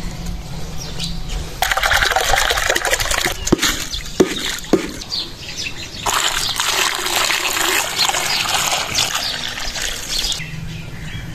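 A stream of water poured from a height into clay bowls, splashing over tomatoes and onions as they are rinsed. It runs briefly about two seconds in, then again for about four seconds from six seconds in, with a few sharp knocks in between.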